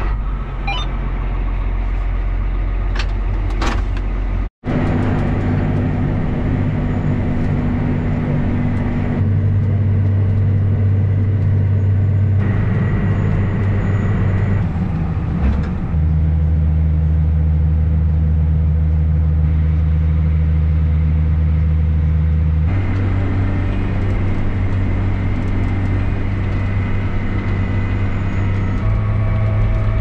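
John Deere tractor engine running steadily, heard from inside the cab. The engine note jumps to a new steady pitch several times where short clips are cut together, with a brief dropout about four and a half seconds in.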